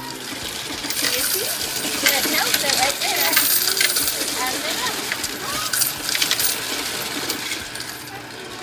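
Loose coins clattering as they are tipped from a plastic piggy bank into a Cummins coin counter's hopper and rattle through the machine as it counts them, a dense run of metallic clinking that fades near the end.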